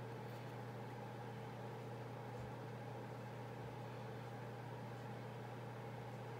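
Steady low hum with a faint hiss, unchanging throughout: background room noise.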